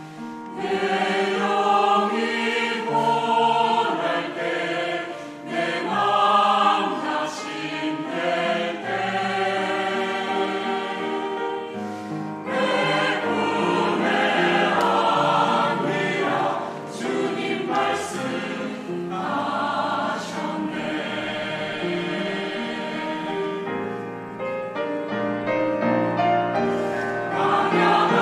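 Mixed church choir of men's and women's voices singing an anthem in parts, dipping briefly softer about three quarters of the way through.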